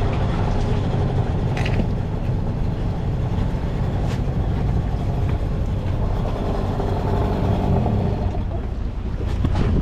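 Small outboard motor idling steadily, with a few light knocks.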